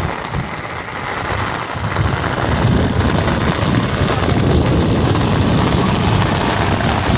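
Heavy rain pouring down in a thunderstorm, with strong gusts of wind buffeting the microphone in a low, rumbling roar that grows louder about two seconds in.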